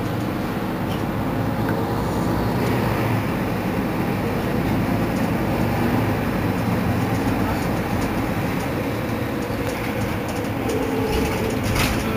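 Mercedes-Benz Citaro C2 city bus idling at a stop, a steady engine rumble. A higher hiss joins about two and a half seconds in, and a few light clicks come near the end.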